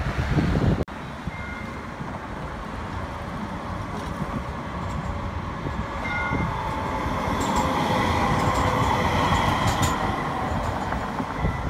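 Brookville Liberty streetcar on the Q Line running past on street-running rails, its sound building to a peak about eight to ten seconds in as it passes close by. The first second is car road noise, which cuts off suddenly.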